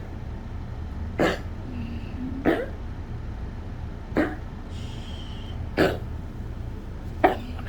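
Yorkshire terrier coughing and hacking in short, sharp bursts, five of them about every second and a half. This is the cough of a collapsing trachea.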